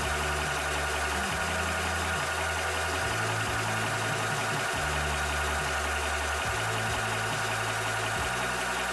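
Cobra high-pressure PCP air compressor (up to 300 bar / 4500 psi) running steadily while pumping, together with its cooling fan, as an even mechanical drone.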